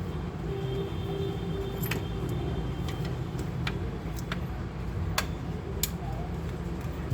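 Sharp, scattered small clicks, about ten of them, over a steady low rumble.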